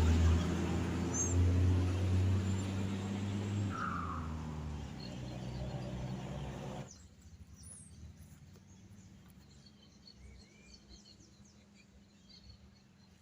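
A motor vehicle's engine running close by and slowly fading as it moves away. About seven seconds in it cuts off abruptly to a quiet outdoor background with birds chirping.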